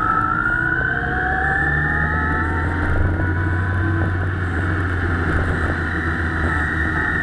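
Motorcycle engine running while riding, its pitch rising slowly as the bike picks up speed, over a steady low drone.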